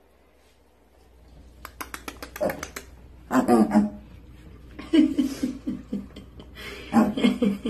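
A woman laughing softly in short rhythmic bursts, several times, with a quick run of sharp clicks about two seconds in.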